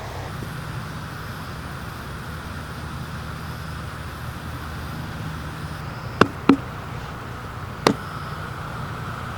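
Steady low background rumble, with three sharp knocks or clicks about six to eight seconds in, two close together and a third a little over a second later.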